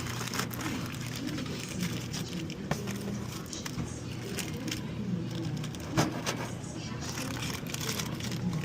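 Snack packets being handled and set into a vending machine's spiral coils: light clicks and taps over a steady low hum, with one sharper knock about six seconds in.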